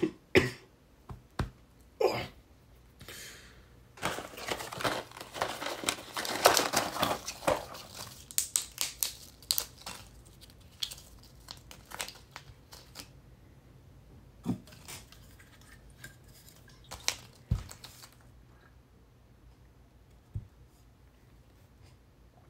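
Packaging crinkling and tearing for a few seconds, starting about four seconds in, with scattered light clicks and taps before and after.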